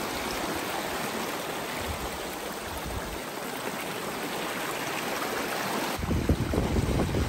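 Stream water rushing steadily over its bed. About six seconds in, a low, gusty rumble joins it.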